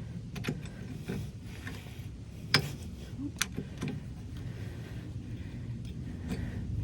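Scattered light metallic clicks and scrapes of Leatherman Surge multi-tool pliers working a cotter pin on a snowblower wheel axle, the sharpest click about two and a half seconds in.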